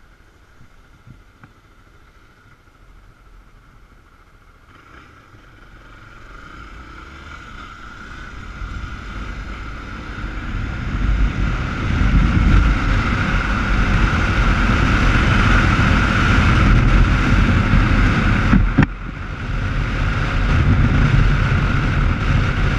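Motorcycle pulling away and speeding up, with wind rushing over the helmet-mounted microphone that grows from faint to loud over the first dozen seconds and then stays loud. It cuts out briefly about nineteen seconds in.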